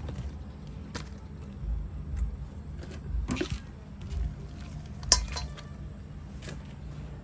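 A few scattered clinks and knocks against a stainless-steel pot as herbs and prawns are put into it, the sharpest about five seconds in, over a low steady hum.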